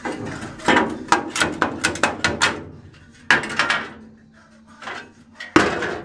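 Rusty steel body pieces knocking and clanking against metal as they are handled. There is a quick rattle of strikes for about two seconds, then a louder clank about three seconds in and another near the end.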